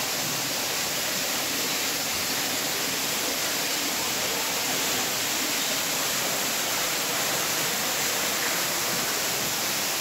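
Steady, even rushing hiss of water that does not change.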